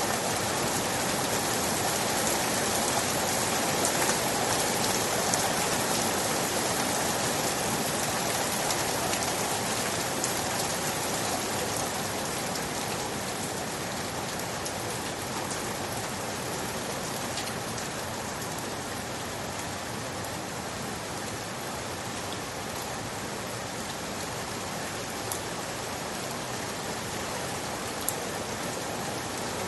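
Steady rain falling, a dense hiss with scattered individual drop ticks, slightly heavier in the first dozen seconds and easing a little after.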